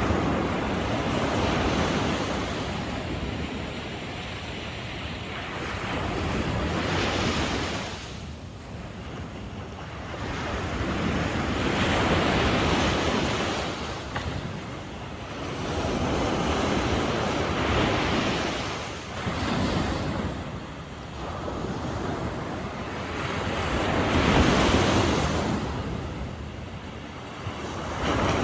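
Sea waves breaking on the shore, each wave swelling up and washing back, one every four to six seconds.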